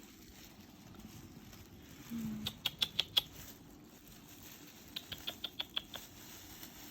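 Two short runs of quick, sharp clicks, about eight a second: five clicks a couple of seconds in and seven more about two seconds later.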